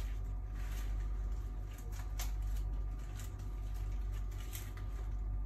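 Lamellar armor plates clicking and rustling a few times as the chest armor is buckled up on the right side, over a steady low hum.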